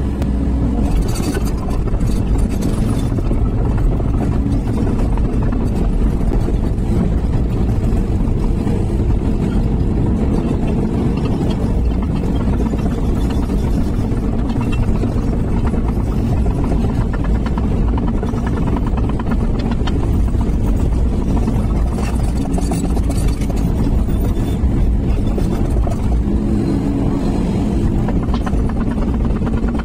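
Sany SY215C excavator's diesel engine running steadily under working load as the arm and bucket dig, heard from inside the cab.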